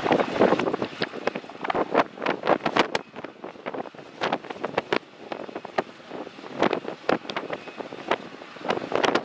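Gusty wind buffeting the microphone in irregular blasts, heaviest in the first three seconds and again near the end, over a Boeing 787's twin jet engines at take-off power as it rolls and lifts off.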